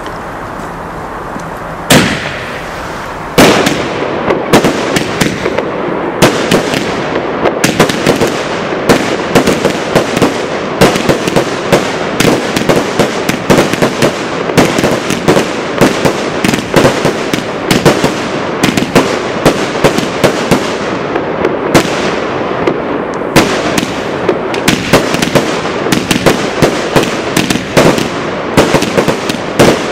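100-shot Thunder King firework cake firing. A single loud bang comes about two seconds in and another a second and a half later, then a rapid, unbroken run of sharp bangs, several a second, as the shots launch and burst.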